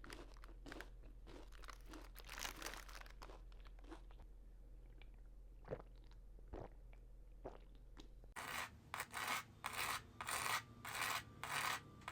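Close-miked chewing of fast food: soft, irregular mouth sounds at first, then from about eight seconds in, loud crisp crunching bites.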